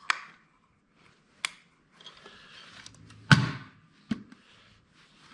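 A white plastic switch box with a hinged, latched door being handled: a few sharp clicks and knocks, some rustling, and a louder knock a little over three seconds in.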